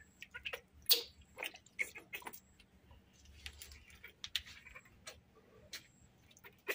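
Scattered small splashes and drips of water in a basin of soapy bathwater, heard as irregular short clicks and ticks.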